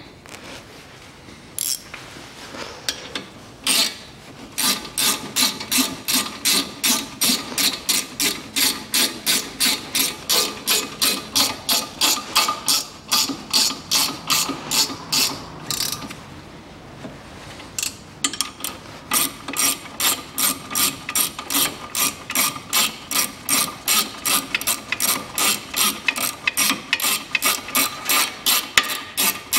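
Ratchet wrench clicking in quick, even back-and-forth strokes, about three a second, as the front brake caliper's guide-pin bolts are run in. There are two long runs with a short pause between them, after a few knocks near the start.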